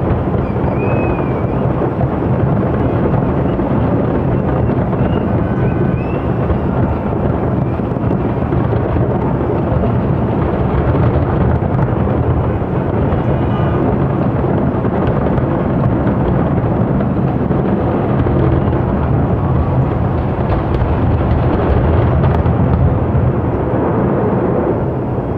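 Fireworks display: many aerial shells bursting in quick succession, their bangs merging into a continuous low rumble.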